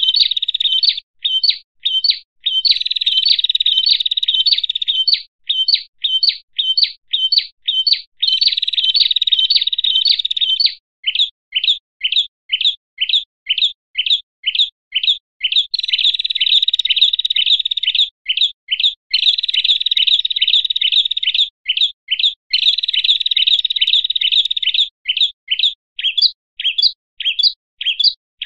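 Agitated, noisy chattering of prinias (prenjak) and other small songbirds, the excited calls used in a bird-lure track to stir up other birds. Dense rapid chattering runs of a few seconds alternate with rows of separate sharp, high chirps at about two to three a second.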